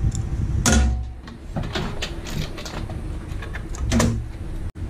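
Knocks and small metallic clicks of a motherboard being unscrewed and lifted out of a steel computer case. There is a loud knock just under a second in, a run of light clicks through the middle, and another knock about four seconds in.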